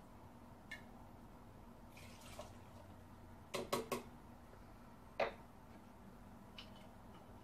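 Cocktail-making sounds as a jigger, liqueur bottle and ice-filled shaker are handled: a brief pour of liquid, then three quick clinks in a row and a single clink about a second later.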